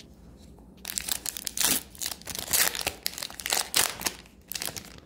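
Shiny foil wrapper of an Upper Deck Series 1 hockey card pack crinkling as it is torn open and the cards are pulled out, a run of sharp crackles starting about a second in.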